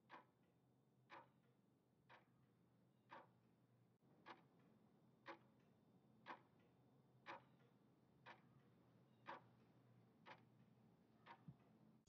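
Faint clock ticking, one sharp tick about every second at a steady, even pace.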